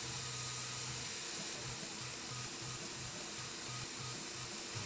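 Tormach PCNC 1100 CNC mill machining aluminium on a 4th-axis rotary, with mist coolant spraying in a steady hiss. A low hum pulses on and off in quick repeats from about halfway through as the mill works a ring of holes around the part.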